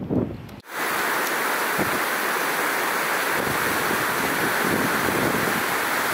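Wind buffeting the microphone, then, after a sudden cut under a second in, the steady, even rush of a small mountain stream cascading over rocks.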